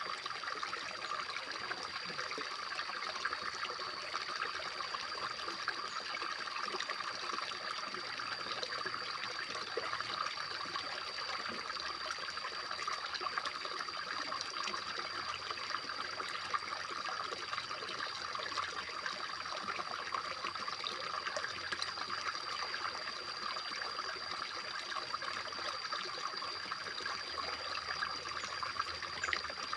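Steady trickling of running water, unchanging throughout, with a constant high-pitched tone over it.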